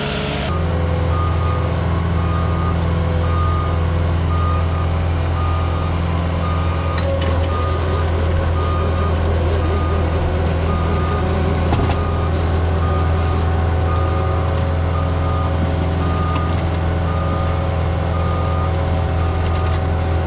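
Cat 257D compact track loader's diesel engine running steadily under load, with its reversing alarm beeping over and over as the machine backs up.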